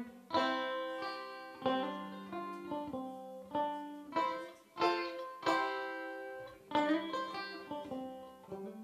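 A resonator banjo picked with fingerpicks, playing an instrumental tune. The plucked notes follow each other quickly, each ringing out and fading.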